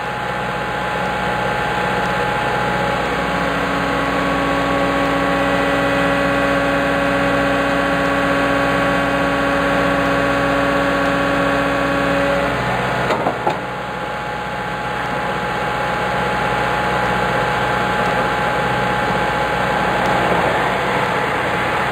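An engine idling steadily, with an added steady hum that comes in about three seconds in and stops about twelve seconds in. There is a short knock soon after.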